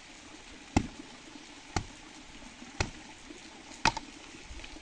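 Short, sharp taps at an even pace of about one a second, over a faint steady hiss.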